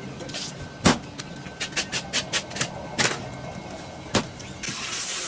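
A whole salmon being cut and handled on a wooden board: three heavy thuds and a quick run of sharp knife clicks. A steady hiss starts near the end.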